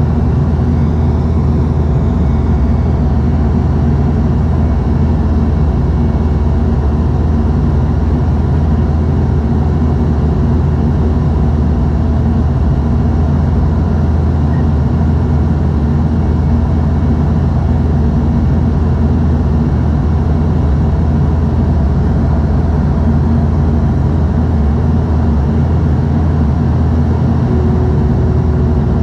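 Cabin noise of a Bombardier Dash 8 Q200 in flight, heard at a window seat beside the propeller: the steady drone of its Pratt & Whitney Canada PW123 turboprop engines and propellers, a constant low hum with a few held tones on top.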